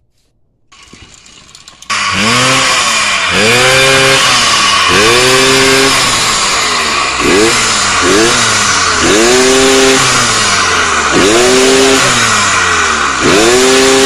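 Two-stroke motorized-bicycle engine with its adjustable CDI set to advance curve 4, running loudly from about two seconds in and revving up and dropping back over and over, about once a second.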